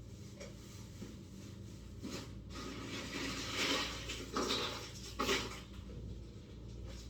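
Ice and containers being handled: a few short clattering rattles, the loudest a little past halfway, over a low steady room hum.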